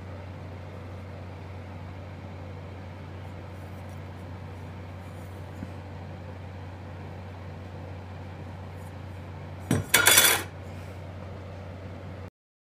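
A steady low hum, then about ten seconds in a short, loud metallic clatter in two quick hits: a steel circular saw blade being set down on a plywood bench.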